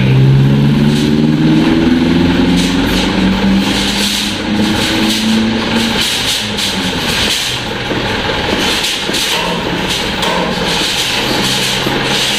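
Dump truck's diesel engine running. A pitched hum slowly falls over about the first six seconds, then gives way to irregular clattering.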